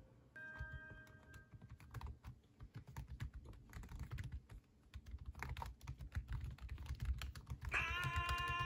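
Typing on a white Samsung laptop's chiclet keyboard: a quick, irregular run of light key clicks. Music comes in near the end.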